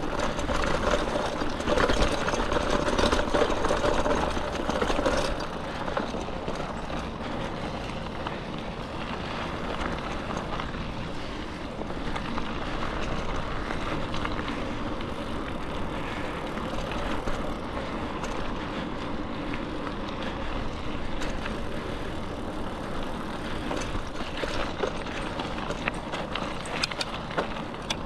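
Bicycle rolling along a dirt trail: steady tyre and riding noise, louder for about the first five seconds, with a few sharp clicks and rattles near the end.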